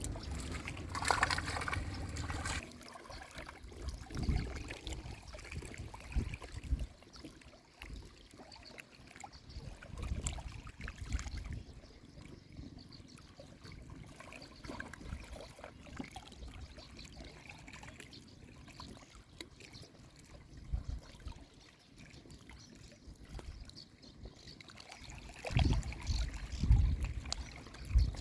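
Gentle trickling river water, with low rumbling bumps on the microphone in the first couple of seconds and again near the end.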